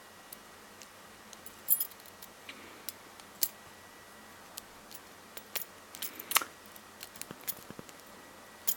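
Faint, irregular metal clicks and ticks of a homemade hacksaw-blade half-diamond pick working the pins of a padlock under a tension wrench during single pin picking. The louder clicks come about one and a half, three and a half and six seconds in.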